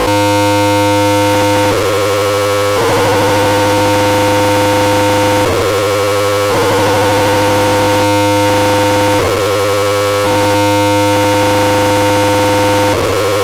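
Eurorack modular synthesizer patch built around the Triple Cap Chaos oscillator, which starts abruptly as a loud, noisy drone: a steady low hum under several held tones and hiss. Every few seconds the tones warble and slide to new pitches as the modulation shifts the chaos.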